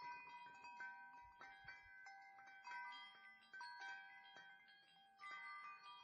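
Faint chimes ringing: many clear, overlapping tones, struck at irregular moments and each ringing on for a second or so.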